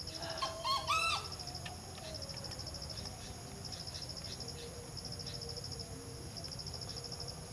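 Insects trilling in repeated short pulsed bursts, high-pitched, with a short bird call, several rising notes, about half a second in.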